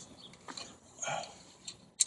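Faint clicks and taps of metal brake parts being handled while a car's front caliper and pads are fitted back, with one brief low sound about a second in.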